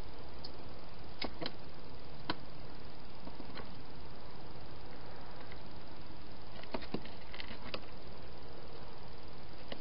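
A wild hedgehog feeding at a dish inside a plastic feeding box: a few faint scattered clicks and ticks against a steady hiss.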